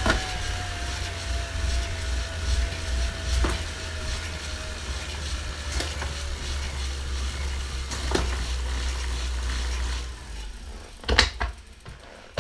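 Tacx Vortex Smart bike trainer running, a low hum with a whine from the roller and resistance unit that falls slowly in pitch, with faint clicks every two to three seconds. The hum stops about ten seconds in, followed by two knocks near the end.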